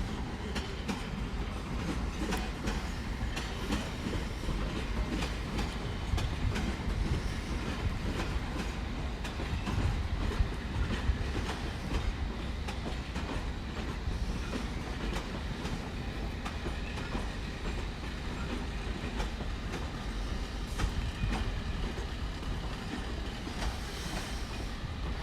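London Underground District line train rolling into the platform, a steady rumble with wheels clicking over the rail joints.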